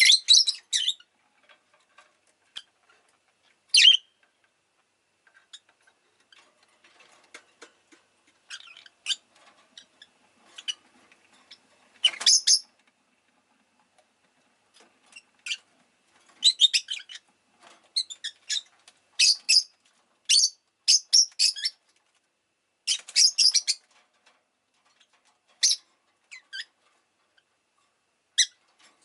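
Rosy-faced lovebird giving short, shrill chirps, scattered at first and coming in quicker clusters through the second half.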